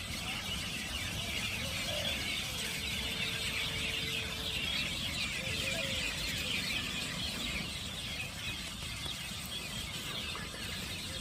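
A dense chorus of many small birds chirping and chattering without a break, over a low rumble. A few short, lower calls stand out about two seconds and five and a half seconds in.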